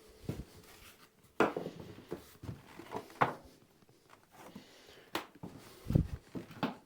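Scattered knocks and clunks of wood and tools being handled, with a heavier thump about six seconds in.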